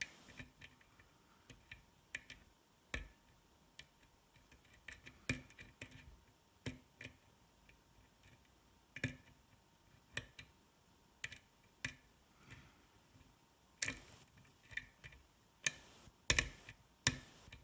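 Lock pick working the pins of a DOM S cylinder lock: light, irregular clicks and ticks as pins are lifted and set under tension, with a cluster of louder clicks near the end.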